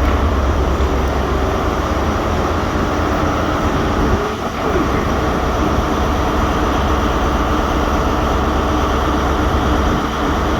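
Stannah passenger lift running with a loud, steady low hum under a rushing noise, dipping briefly about four seconds in.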